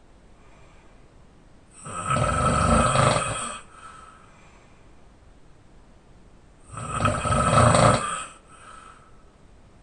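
Loud open-mouth snoring of a person lying on his back: two long snores about five seconds apart, each followed by a short, softer breath.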